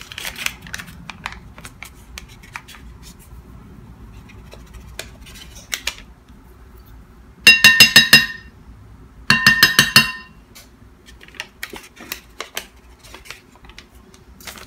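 Metal measuring spoon rapped quickly against the mixing bowl in two short rattling runs, each about a second long, the bowl ringing with each tap. Light handling clicks and rustles come before and after.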